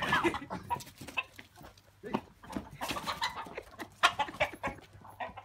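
Chickens clucking and squawking, with a short bending call near the start, amid scattered sharp knocks and scuffles.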